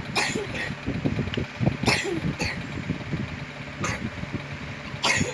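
Handling noise from repair work: irregular knocks, taps and scrapes of parts and tools, with a few short sharp hisses, over a steady low hum.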